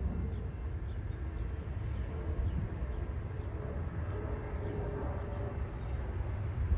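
Amtrak passenger train's diesel locomotive approaching from a distance, a steady low rumble that grows slightly near the end, with birds chirping faintly.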